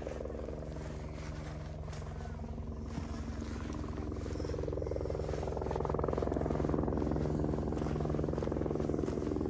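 Helicopter flying overhead: a steady rotor chop and engine drone that grows louder over the first six seconds or so, then holds.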